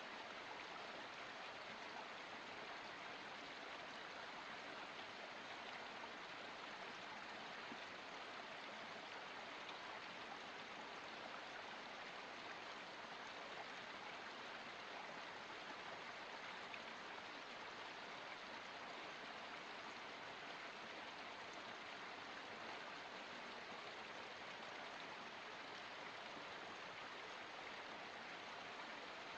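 Water running steadily in a small forest stream, an even, unbroken rush.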